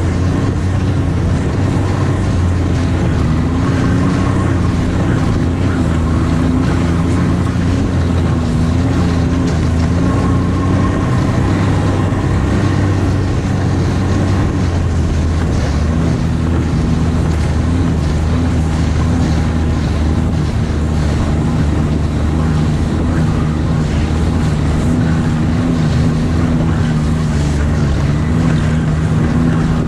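Snowmobile engine running steadily at trail speed, its pitch dipping and rising a little with the throttle, with wind rushing over the microphone.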